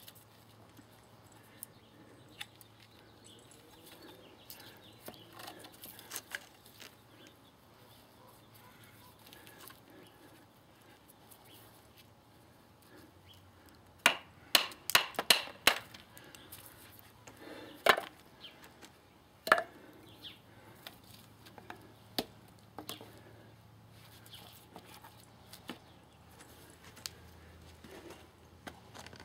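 A wooden baton striking the spine of a TOPS Fieldcraft knife to split a piece of juniper: a quick run of about six sharp knocks a little past the middle, then two more single blows, with lighter taps and clicks in the quieter stretches.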